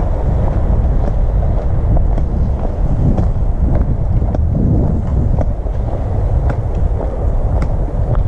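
Wind rumbling and buffeting on a head-mounted action camera's microphone, with light footsteps on a forest track about twice a second.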